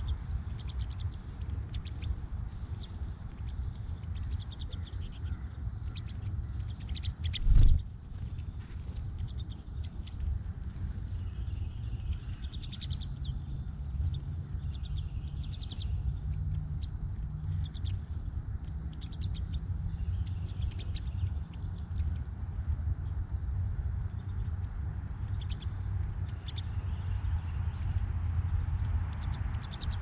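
A flock of pine siskins calling at a feeder: many short, high chirps, one after another, throughout. A steady low rumble runs underneath, and a single loud thump comes about seven and a half seconds in.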